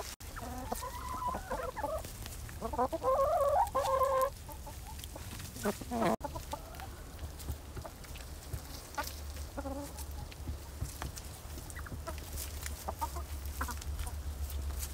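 A flock of hens clucking, with louder drawn-out calls in the first four seconds or so, then softer clucks and scattered small clicks, over a steady low hum.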